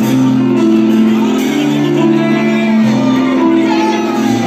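A live band playing with electric guitar and drum kit, its held chords and low notes changing about every second and a half.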